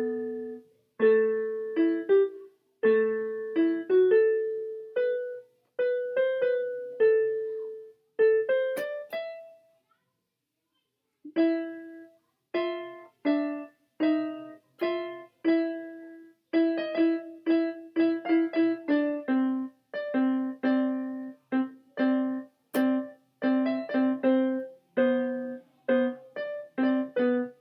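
Casio CTK-2300 electronic keyboard playing a simple melody on its piano voice, one or two notes at a time, each struck and fading. The playing stops for about a second and a half near the middle, then resumes with quicker notes.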